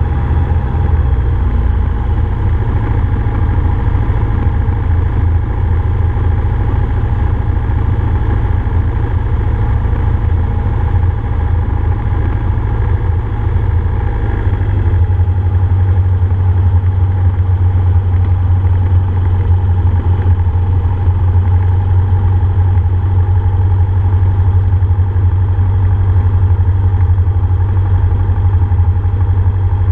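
Cessna F150L's four-cylinder Continental O-200 engine and propeller running steadily in flight, a loud low drone. About halfway through the engine note shifts and gets slightly louder.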